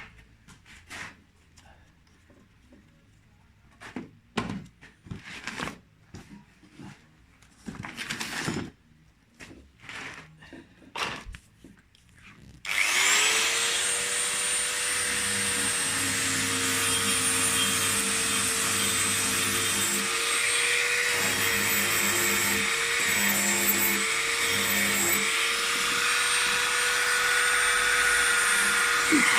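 A few light knocks and clicks of handling, then about halfway through an electric power tool starts suddenly and runs steadily with a motor whine, its pitch dipping briefly a few times as it is loaded.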